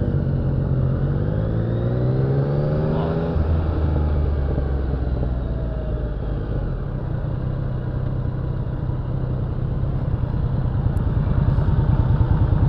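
Yamaha XSR900's three-cylinder engine pulling away and accelerating, its note rising for about three seconds, then dropping at a gear change and running on steadily at cruising speed, growing a little louder near the end.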